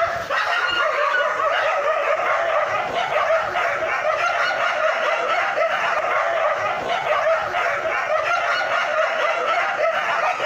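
Dogs snarling and growling without a break, heard as a dense, wavering noise.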